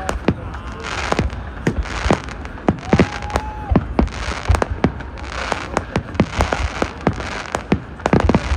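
Fireworks and firecrackers going off in a dense, irregular barrage of sharp bangs and crackling, with a short held tone about three seconds in.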